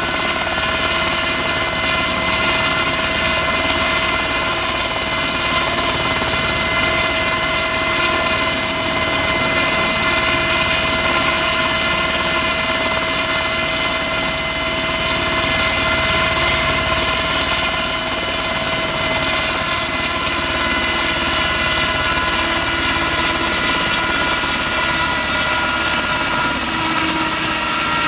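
Turbine-engined Ultrasport 496 helicopter running steadily on the ground: a high turbine whine over the engine and rotor noise. The whine drops slightly in pitch about two-thirds of the way through and again near the end.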